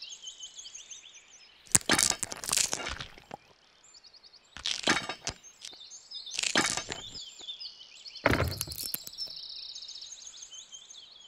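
Black plastic toy train track sections being handled, fitted together and set into sand: four short scraping, clicking bursts. High bird chirps repeat throughout in the background.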